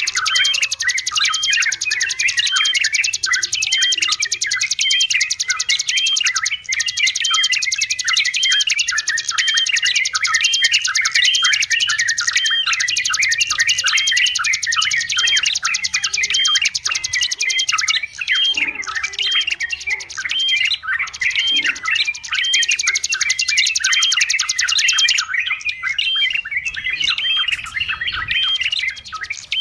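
Yellow-vented bulbuls in a noisy chatter of short calls, repeated about twice a second. Behind them runs a steady, fast, high-pitched pulsing buzz that drops out briefly a few times.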